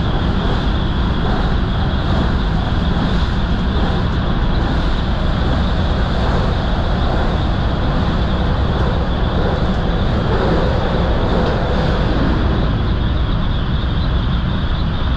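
JR 223 series electric train running at speed, heard from behind the driver's cab: a loud, steady running noise of wheels on rails.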